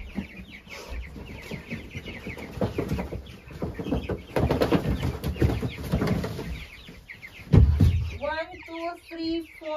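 Young chicks peeping in many short, high cheeps over the rustle of wood-shaving bedding being stirred, with a dull thump about seven and a half seconds in.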